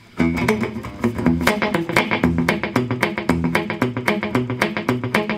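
Gretsch hollow-body electric guitar fingerpicked through an amplifier in a steady, even pattern of short notes. The notes are damped by the guitar's built-in string mufflers, which stand in for palm muting.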